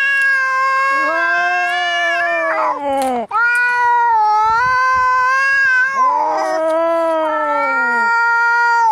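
Angry cats caterwauling at each other: long, drawn-out yowls from two voices at once, wavering up and down in pitch, with a short break a little over three seconds in.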